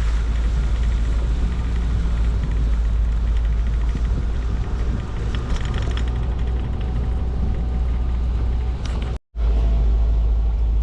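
Steady low rumble of a car driving, engine and road noise heard from inside the cabin. The sound cuts out completely for a split second about nine seconds in.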